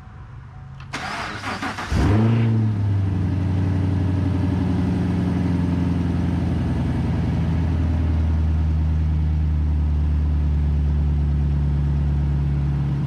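The 2019 Camaro SS 1LE's 6.2-litre LT1 V8 is started on its first heat cycle after a rebuild. The starter cranks for about a second, the engine catches with a brief rev flare about two seconds in, then settles into a steady idle to warm up.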